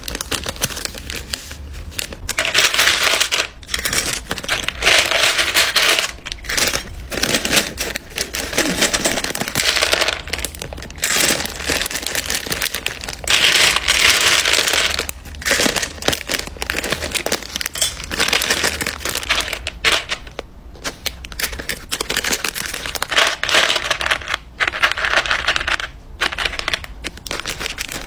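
A clear plastic bag crinkling as handfuls of tiny miniature charms rattle and clatter into it, in irregular bursts with many small clicks.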